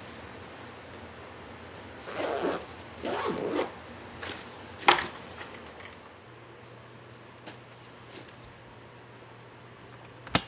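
Camera bag zipper pulled in two quick rasping strokes, followed by a single sharp click about five seconds in; another sharp click comes right at the end.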